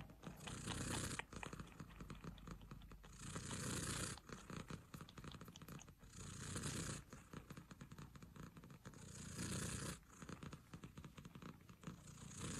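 Ginger tabby cat purring close to the microphone, swelling louder about every three seconds.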